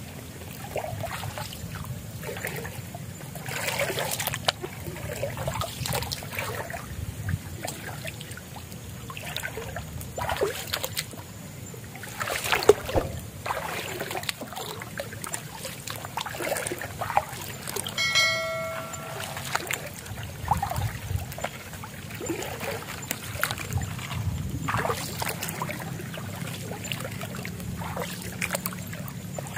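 Shallow water splashing and sloshing at irregular steps as someone wades through a mangrove mudflat, one splash about halfway through louder than the rest. A short pitched tone sounds about two-thirds of the way through.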